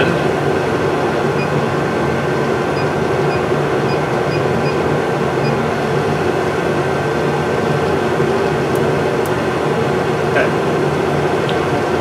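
Steady machine hum with a faint high whine from a Monarch 10EE metal lathe's drive running while the spindle stands still. A few faint clicks come near the end.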